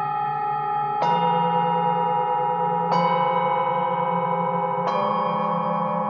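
Struck metal bells ringing, three strokes about two seconds apart. Each stroke sounds a different set of notes and rings on under the next.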